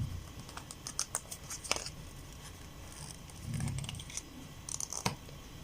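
Tarot cards being handled and slid against each other: scattered light clicks and paper rustling.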